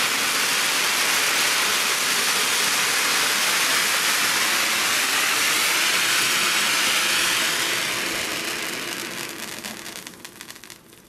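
Ground fountain firework spraying sparks with a steady, loud hiss that fades from about eight seconds in, breaking up into a scatter of sharp crackles as it burns out.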